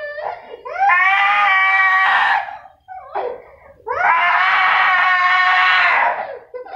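Toddler crying hard: two long, loud wails, one about a second in and one near the middle, each a second and a half to two seconds, with short catching sobs and breaths between them.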